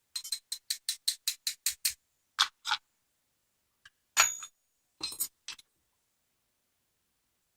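Small metal padlock parts clicking and clinking as they are handled: a quick run of about nine light clicks, then a few louder clinks, the loudest about four seconds in with a brief metallic ring.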